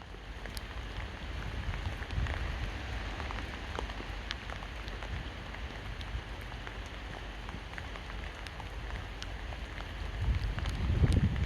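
Steady rain falling, with scattered individual drops ticking. A low wind rumble on the microphone swells near the end.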